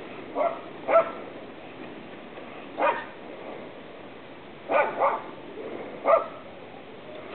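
A dog barking: about six short barks at uneven intervals, two of them close together a little before the five-second mark.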